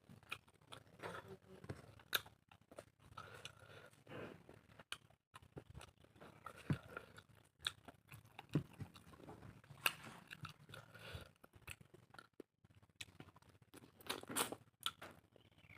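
Close-miked chewing and biting of pork, with irregular crunches and wet mouth clicks.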